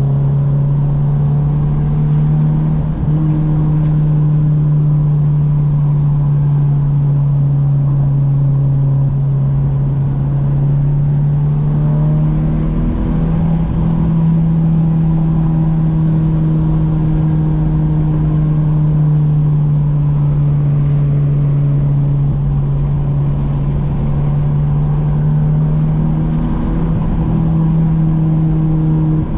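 Car engine and exhaust droning steadily while cruising, heard from inside the cabin. The pitch sinks slowly, then steps up about twelve seconds in and again near the end.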